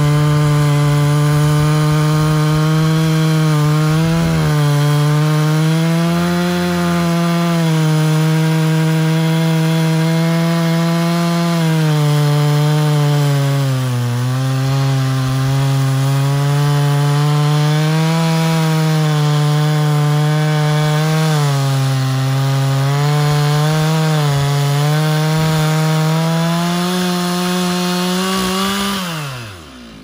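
Chainsaw at full throttle cutting through a felled log, its pitch sagging and recovering as the chain loads up in the wood. Near the end the cut goes through, the throttle is released and the engine falls away toward idle.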